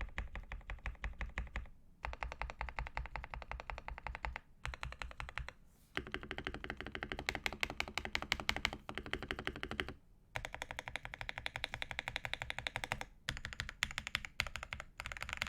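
Typing on a modded Keychron K6 mechanical keyboard: lubed Banana Split switches with TTC Tiger modifiers, a taped PCB and a foam-filled case. Fast, steady keystrokes in runs of a few seconds, broken by short pauses.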